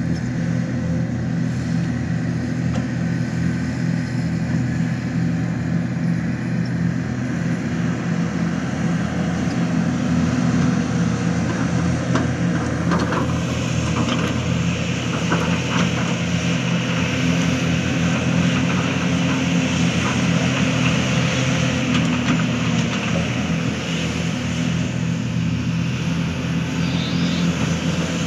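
Hitachi Zaxis 490 LCH excavator's diesel engine running steadily while digging, with a few short knocks about halfway through and a brighter hiss coming in at the same time.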